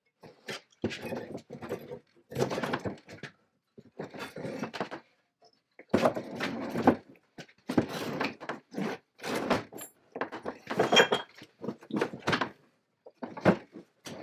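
J.H. Williams No. 16 chain pipe wrench and its heavy link chain being slid and set down on a wooden workbench: a string of irregular clanks, scrapes and thunks, with the chain links jangling.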